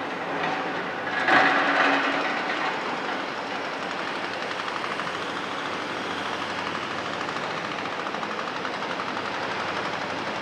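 Excavators working on a demolition site: a loud metallic clang with a brief ringing about a second in, then steady heavy machinery running with a fast, fine rattle.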